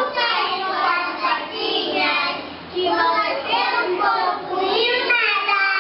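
Young preschool children singing, with at least one child singing into a handheld microphone.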